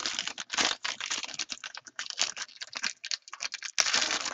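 Foil trading-card pack wrappers crinkling and tearing as packs are opened by hand: a dense, irregular run of crackles.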